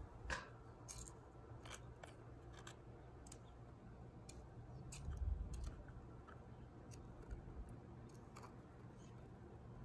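Faint scraping and scattered small clicks of a small metal tool digging loose soil out of a plastic cup, with a low thump about five seconds in.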